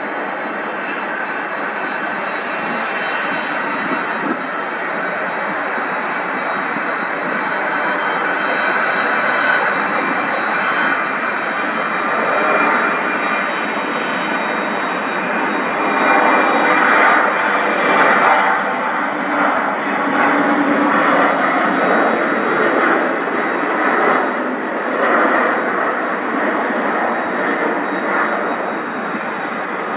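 Embraer E190 twin-turbofan airliner at takeoff power on its takeoff roll: a continuous jet roar with a steady high whine, growing louder about halfway through and wavering at its loudest as the jet passes.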